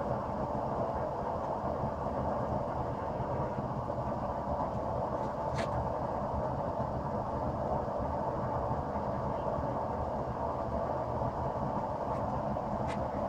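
Gas forge burner running with a steady rushing noise, with two faint clicks, one midway and one near the end.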